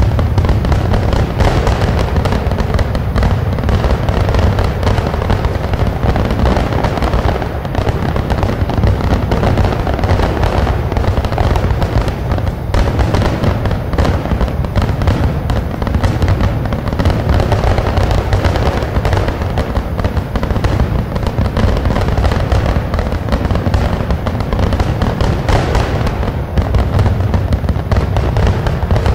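A dense, unbroken barrage of fireworks: crackles and bangs overlapping one another over a constant low rumble.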